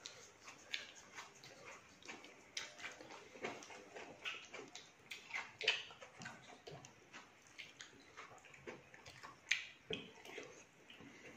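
Faint eating sounds: scattered small clicks and mouth smacks while chewing fruit, with two sharper clicks about halfway and near the end.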